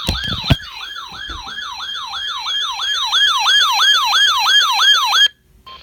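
Electronic siren on its yelp setting: rapid, even up-and-down sweeps, about three a second, with a sharp click about half a second in. It cuts off suddenly shortly before the end.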